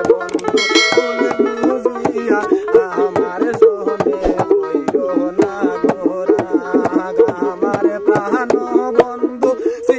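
Baul folk music: a dotara plucked in a quick, twangy melody over steady strokes on a small hand drum, played without singing.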